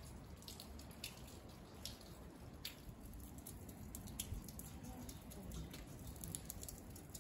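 Light rain: faint, scattered drips and drops ticking at irregular intervals, over a low rumble.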